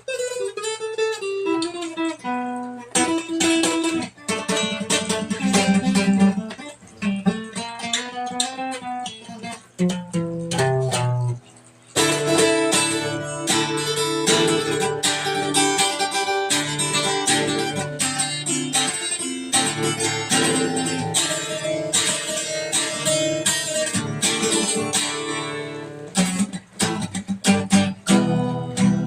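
Acoustic guitar played solo: single plucked notes and short runs, then fuller, denser strummed chords from about twelve seconds in.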